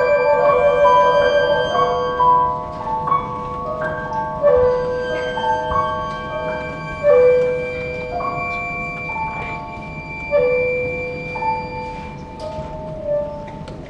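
Chamber quartet of violin, cello, clarinet and piano playing a slow contemporary piece. A fast trill opens it, then a string of held notes follows, each with a sharp attack, stepping up and down in pitch.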